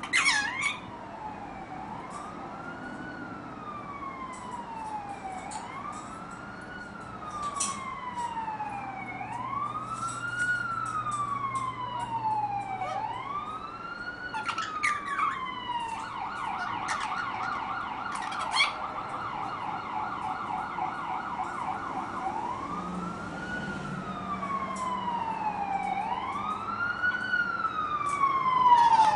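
Ambulance siren wailing, rising quickly and falling slowly about every three seconds, switching to a fast yelp for a couple of seconds about halfway through, then back to the wail and growing louder near the end. Short sharp chirps and clicks from a ringneck parrot come at times over it, most of all at the start.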